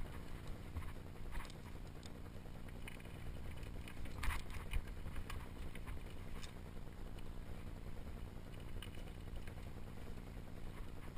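Mountain bike descending a rocky singletrack: a steady low rumble of wind buffeting the microphone, with the tyres and bike rattling over stones in scattered knocks and clicks, the sharpest about four seconds in.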